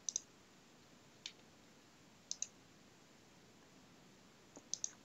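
Computer mouse button clicking a few times, faintly, several of the clicks in quick pairs, with near silence between them.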